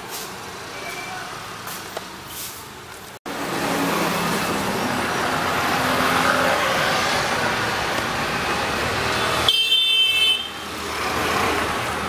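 Steady noise of road traffic, quieter for the first three seconds, then louder after an abrupt break. About ten seconds in, a brief high-pitched tone sounds for about a second and stops sharply.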